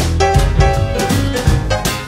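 Instrumental break in an acoustic blues song: a small band playing pitched melody notes over a bass line and a steady beat.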